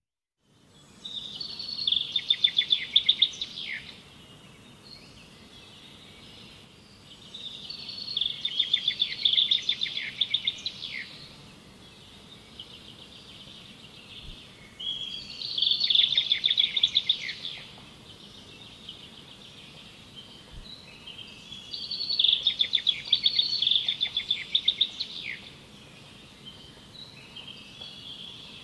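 A songbird singing the same phrase over and over: a run of rapid, high chirps lasting about three seconds, repeated about every seven seconds, over a steady faint background hiss.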